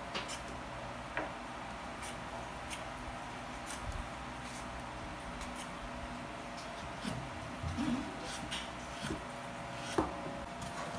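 Quiet room tone with a faint steady hum and scattered small clicks and taps, the sharpest about ten seconds in.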